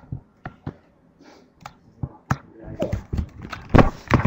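Footsteps and thuds of people moving in the dark, with handling noise from a carried laptop: single knocks about every half second at first, then denser scuffing and thumps from about halfway, the loudest thump near the end.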